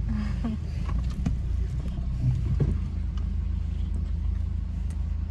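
Steady low rumble of a car idling, heard inside its cabin, with a few faint clicks from chewing a soft wafer snack.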